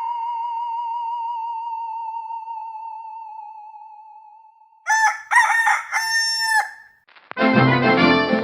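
A wavering tone with vibrato fades out over the first four seconds. About five seconds in, a rooster crows once, a cock-a-doodle-doo sound effect ending on a long held note. Music with brass starts near the end.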